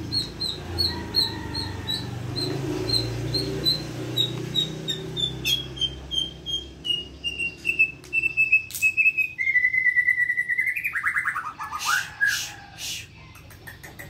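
Murai batu (white-rumped shama) singing: a long series of short whistled notes, about three a second, sliding slowly down in pitch. The notes speed into a trill and a held note about ten seconds in, then end in a rapid falling trill, with a few sharp clicks near the end.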